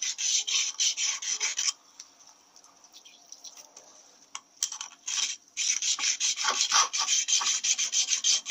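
Abrasive stone rubbed back and forth in quick strokes across the face of a cast iron Powerglide front pump, stoning down high spots so the face is flat and the pump holds pressure. The strokes pause for about three seconds in the middle, then resume.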